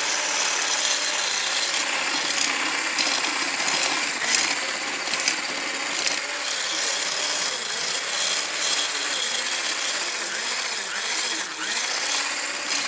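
Electric hand blender with a wire whisk attachment running continuously, whisking dry bath bomb mix in a stainless steel bowl, the whisk scraping against the bowl. The motor's pitch wavers up and down as the load changes.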